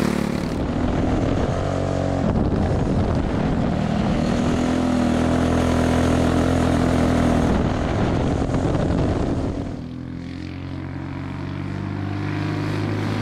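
Tillotson 212 single-cylinder go-kart engine with a Stage 1 kit, running hard on a lap. It eases off about ten seconds in, then builds again.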